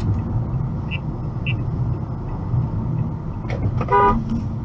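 Steady road and engine noise of a car driving, heard from inside the cabin, with a short car horn blast about four seconds in.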